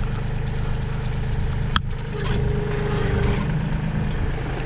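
Bobcat compact tractor's diesel engine running steadily behind, with one sharp metallic clink of the log chain a little under two seconds in. Right after it, a steady whine for about a second as the engine takes on load, the hydraulic hitch lifting the chained log.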